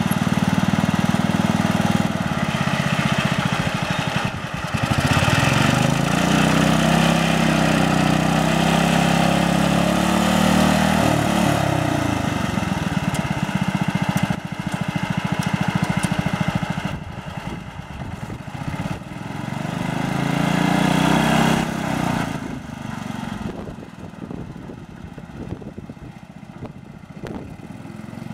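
Sears 600 garden tractor's small engine running as it drives. The engine speed rises and holds for several seconds, falls back, then rises briefly again, and it is quieter over the last several seconds.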